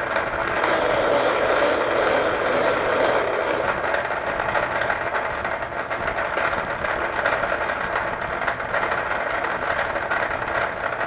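Metal lathe running steadily under power feed while taking a thread-cutting pass, its motor and gearing making a continuous mechanical hum.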